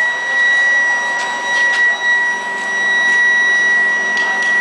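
A 175 kW induction melting furnace running at power: a steady, high-pitched whine with overtones above it, over a hiss, with a few faint clicks.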